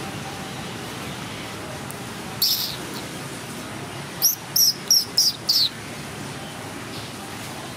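A small bird chirping, high and short: one chirp, then a quick run of five about three to four a second, over a steady background hiss.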